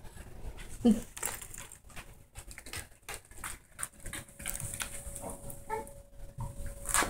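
A dog moving about with light clicks and taps, with a short low vocal sound about a second in and faint whimpering near the end.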